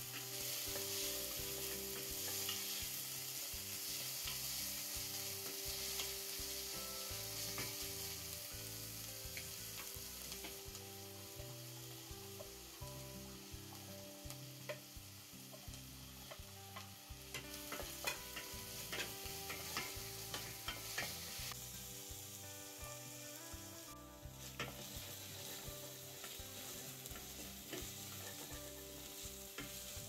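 Shallots, garlic and ginger sizzling in hot oil in a stainless steel pot, stirred with a wooden spatula that scrapes and taps against the pot. There is a cluster of sharper taps a little past halfway.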